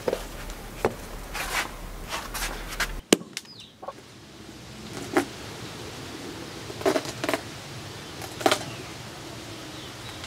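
A large knife chopping into a pumpkin on bare ground: four separate strikes in the second half, two of them close together, after some scattered knocks as the pumpkin is handled.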